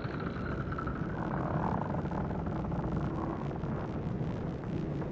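A steady low rumbling drone with a light hiss above it, an ambient soundtrack bed under the narration pause.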